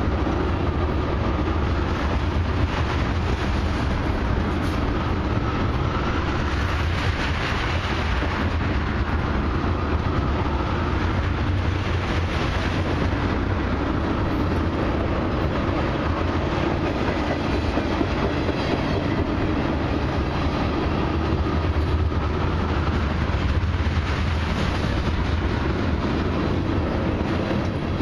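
Loaded ethanol tank cars of a long freight train rolling past close by: a steady, unbroken noise of steel wheels running on the rails.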